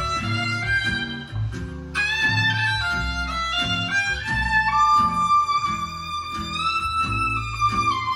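Instrumental break of a ballad recording: a violin melody over a plucked bass line of about two notes a second, played back through an 811/808 single-ended tube amplifier.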